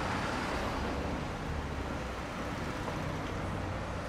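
Street traffic: cars driving past, a steady mix of engine hum and tyre noise.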